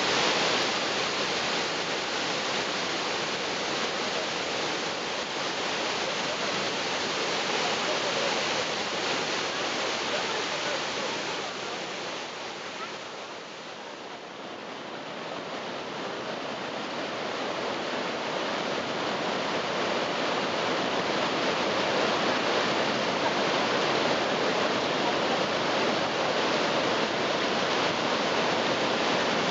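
Niagara Falls: a steady rush of water pouring over the falls. It dips for a few seconds about halfway through, then builds back up.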